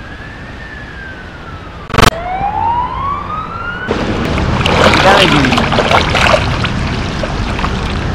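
An emergency-vehicle siren wails in slow rising and falling sweeps, with a sharp knock about two seconds in. About four seconds in, a loud rush of floodwater swirling down a street drain takes over.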